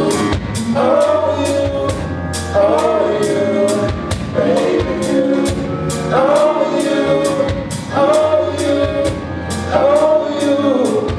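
A band playing a slow love song: held sung vocal phrases, repeated about every two seconds, over a steady drum beat and bass.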